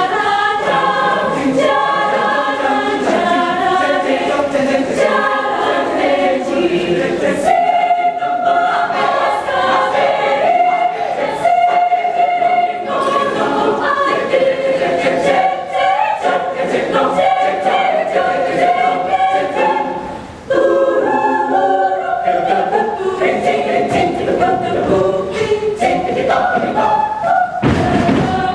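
Mixed choir singing a cappella in several parts, with a short break just after the middle. Percussive thumps punctuate the singing, heaviest near the end.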